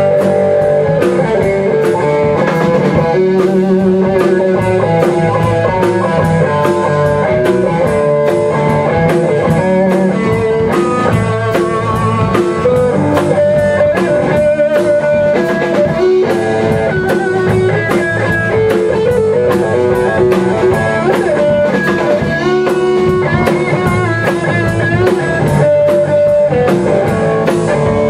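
Rock band playing an instrumental passage live: electric guitar and bass guitar over a drum kit, without vocals.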